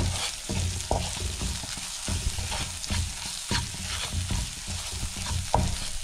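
Spatula stirring and scraping onions and spice paste around a non-stick kadai as they fry in oil, with a light sizzle and irregular taps of the spatula on the pan. The masala is being sautéed to cook off its raw smell.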